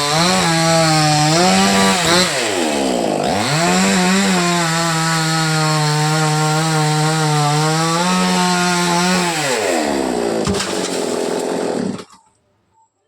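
Chainsaw running at high revs. Its pitch dips sharply and recovers about three seconds in, then sags again near ten seconds. The sound cuts off suddenly about twelve seconds in.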